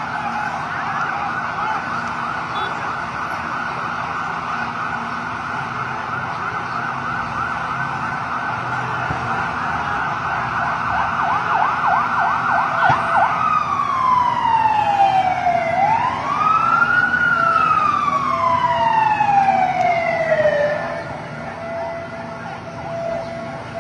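Emergency vehicle siren, first in a fast yelp, then switching about halfway through to a slow wail that falls, rises and falls again, dropping to a fainter steady tone near the end.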